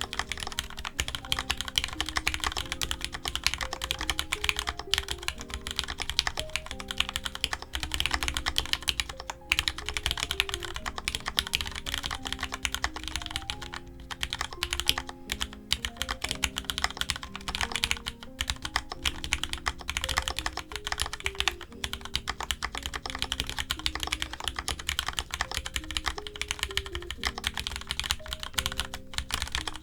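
Continuous fast typing on a mechanical keyboard with Cherry MX2A Orange tactile switches, a dense run of clacking keystrokes with short pauses here and there. Soft background music plays underneath.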